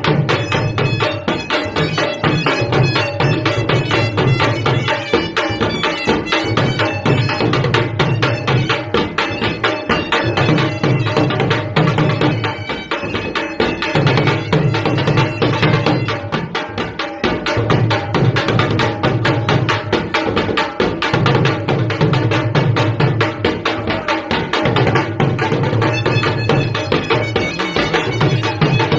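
A dhol drum beaten in fast, steady strokes under a surna (shawm) playing a continuous melody: live folk dance music.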